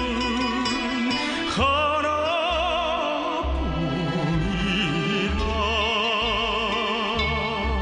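A singer holding long notes with a wide vibrato over a backing track with a steady low beat.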